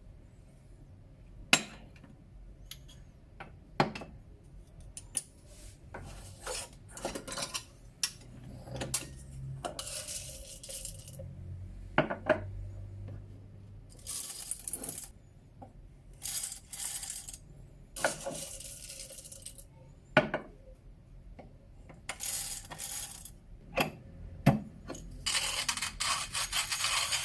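Small hard objects clinking and clattering, with a few short scraping or rubbing sounds; a steady hiss starts near the end.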